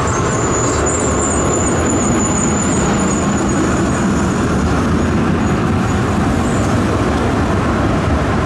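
Articulated tram passing close by, a steady rumble of its running gear on the rails, with a high-pitched squeal over the first few seconds.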